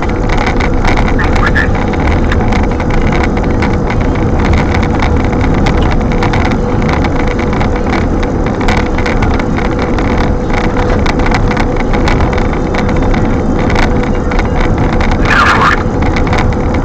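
High wind blowing hard across the microphone: a constant heavy rumble scattered with small clicks and rattles, under a faint steady hum.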